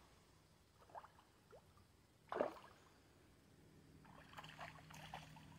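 A single splash as a fish breaks the river's surface, about two and a half seconds in. Faint scattered ticks follow near the end.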